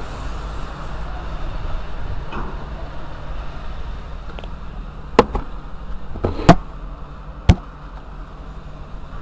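Wind rumbling on the microphone, with four sharp knocks between about five and seven and a half seconds in; the third is the loudest and rings on briefly.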